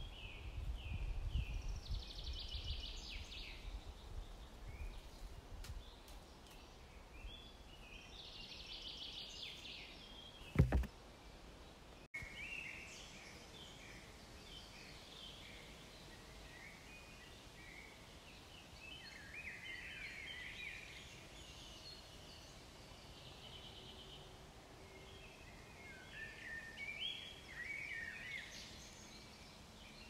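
Small songbirds singing short, repeated phrases every few seconds. A low rumble of wind or handling fades over the first few seconds, and a single sharp thump comes about ten seconds in.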